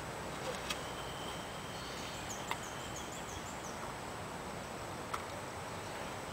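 Open-air ambience: a steady hiss of wind and background noise. A small bird chirps a quick run of short high notes for about a second and a half near the middle, and there are a few faint ticks.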